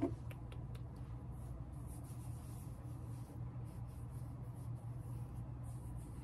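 Cotton pad soaked in liquid exfoliant being swiped and rubbed over the face, soft airy rubbing strokes, after a few light clicks near the start. A low steady hum runs underneath.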